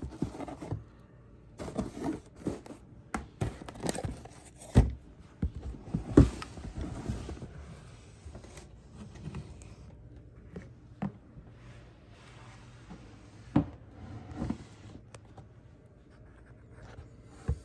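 Irregular knocks, clicks and scraping from handling around a snake enclosure while a rat feeding is set up. The sharpest knocks come about five and six seconds in and again near thirteen and a half seconds.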